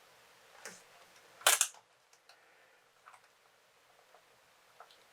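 Sharp clicks and a brief crackle from handling a laptop LCD panel and pulling at the adhesive tape stuck over its display connector. The loudest crackle comes about a second and a half in, with fainter ticks after it.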